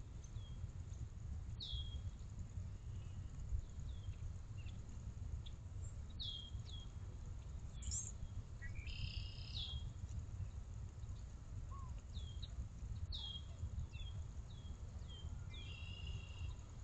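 A bird calling again and again in short, high, downward-sliding chirps, with two longer, buzzier calls, one about halfway through and one near the end, over a low steady rumble.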